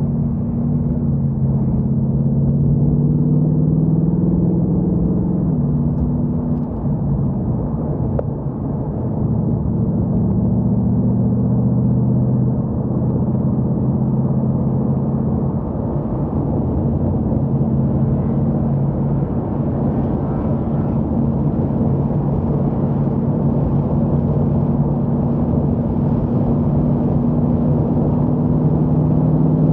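Ford Mustang Mach 1's 5.0-litre V8 heard from inside the cabin, pulling the car along under throttle. The engine note steps in pitch a few times in the first ten seconds, then holds fairly steady while road and wind hiss grows in the second half.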